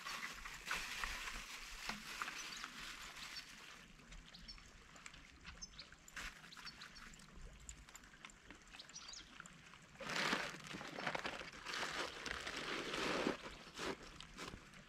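A dog eating at its bowl, with faint small clicks and smacks. About ten seconds in, a few seconds of louder rustling as a bicycle pannier is rummaged through.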